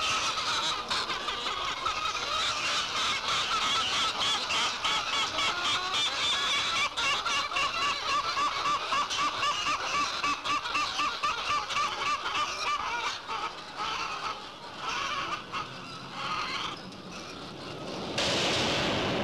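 A large flock of chickens calling and clucking together, a dense overlapping din that thins out in the second half. Just before the end, a sudden loud rushing noise cuts in.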